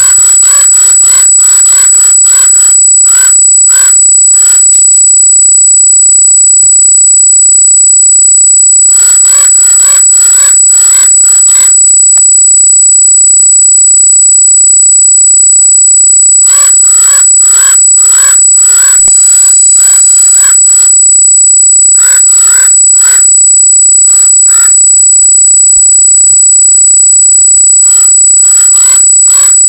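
A steady, high-pitched electronic squeal from the trail camera's recording runs throughout. Over it come several bursts of harsh animal calls, each burst a quick run of strokes, with quiet gaps of a few seconds between them.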